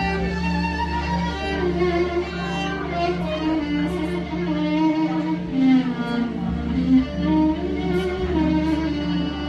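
Violin playing a sliding Arabic melody over electronic keyboard accompaniment with a sustained bass.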